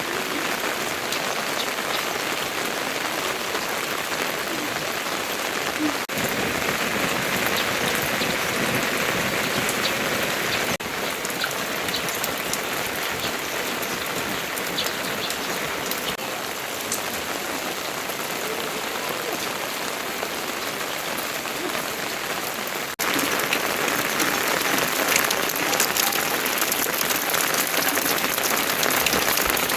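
Heavy rain falling steadily: an even hiss full of the patter of individual drops. Its loudness jumps abruptly a few times, and it is loudest in the last few seconds.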